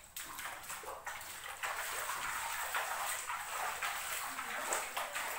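Footsteps splashing through shallow floodwater on a tiled floor, a steady run of splashes.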